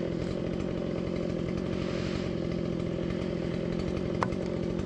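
ATV engine idling steadily, with no revving. A short sharp click comes about four seconds in.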